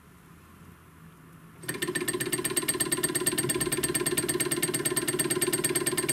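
Homemade two-syringe Stirling engine with 5 ml glass syringe cylinders starting about a second and a half in, then running fast with a rapid, even mechanical clatter.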